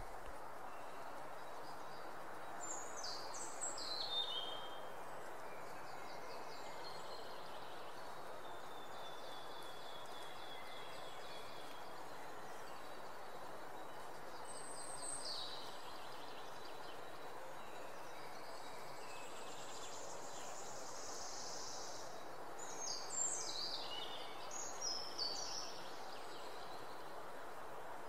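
A steady even hiss of background noise with birds chirping over it: a few short falling calls a few seconds in, one around the middle, and a cluster of several near the end.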